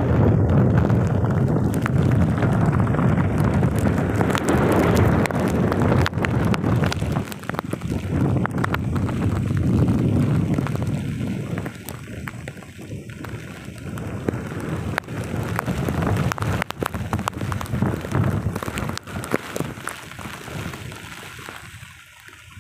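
Typhoon wind gusting across the microphone, with rain pattering. The gusts are strongest in the first half and ease off toward the end.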